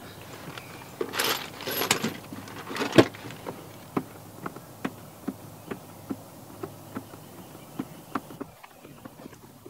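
Ratchet and socket turning a bolt in short swings where there is little room to turn it, giving a regular click about every half second, after some rustling and one sharp knock about three seconds in.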